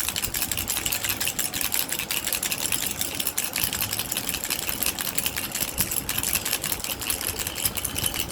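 Baby rattle shaken quickly and without pause, its beads clicking in a fast, steady clatter.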